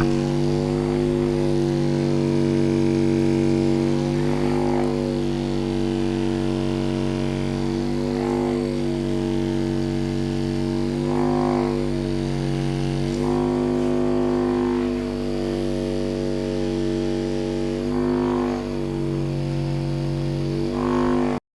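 Music: a steady droning chord of held low tones that shifts slightly every few seconds.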